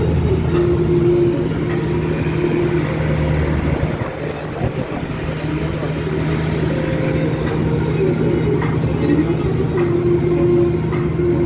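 Minibus engine running steadily under way, heard from inside the cab as a constant low hum. A higher held tone comes in for a couple of seconds near the start and again near the end.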